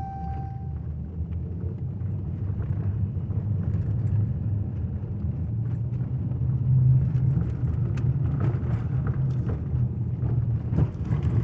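Inside the cabin of a 2015 Jeep Cherokee with the 2.4 L MultiAir four-cylinder, driving down a rough dirt street: a steady low engine and road rumble that slowly grows louder, with scattered light knocks from the bumps. A short dashboard chime sounds right at the start.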